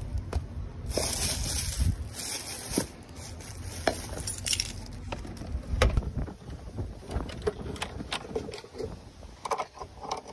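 Handling noise from tools and a boxed part: scattered clicks, knocks and scrapes with a light metal jangle, and a brief rustle about a second in.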